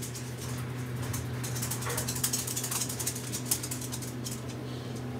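Faint, scattered small clicks and rustles of makeup being handled, over a steady low electrical hum.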